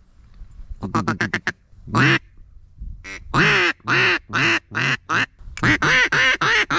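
Duck call blown in a run of quacks: a quick burst of short quacks, one longer quack, then a string of evenly spaced loud quacks about two a second, ending in a fast run of short quacks.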